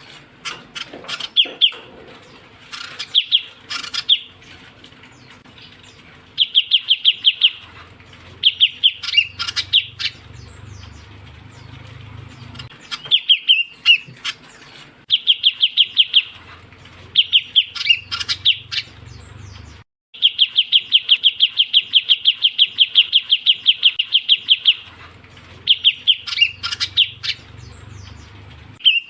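Ciu kunyit bird call used as a lure: repeated bursts of quick, high chattering trills, each lasting one to several seconds, with the longest run of about five seconds past the middle.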